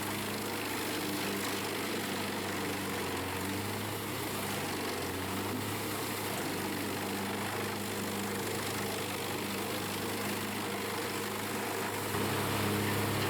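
Heavy engine of an industrial drum wood chipper running steadily with a low hum, a little louder near the end; no chipping impacts are heard.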